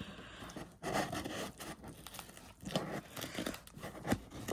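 Cardboard package being pried and torn open by hand: irregular tearing, scraping and crinkling, with a single thump about four seconds in.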